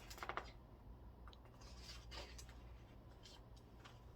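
Near silence, with a short soft rustle right at the start and a few faint rustles later: a picture book's pages being handled and turned.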